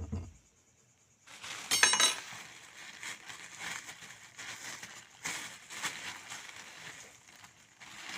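Tableware or glass handling: a dull thump, then crackling and clinking with a quick rattle of clicks about two seconds in, and scattered lighter clicks after it.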